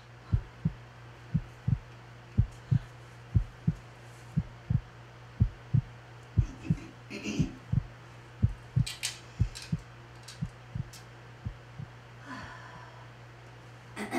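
Heartbeat as heard through a stethoscope: low lub-dub thumps in pairs, about one pair a second, over a steady low hum.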